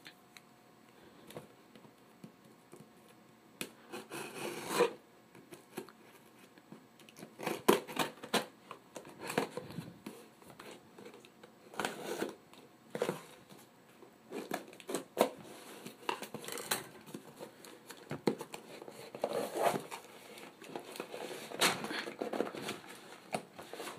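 Packing tape on a cardboard shipping box being cut and pulled open by hand: irregular scrapes and clicks of the blade and fingers on the tape and cardboard, with the box shifting on the table.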